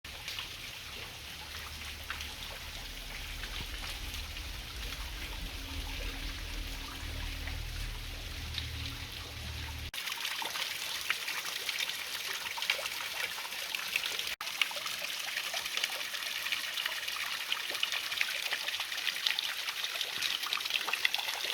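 A small waterfall trickling and splashing over rocks, running low after dry weather. A low rumble sits underneath until about ten seconds in, when the sound changes abruptly to brighter, nearer splashing.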